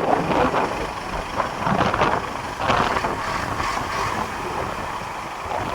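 Heavy vehicle engine running unevenly, mixed with noisy rushing.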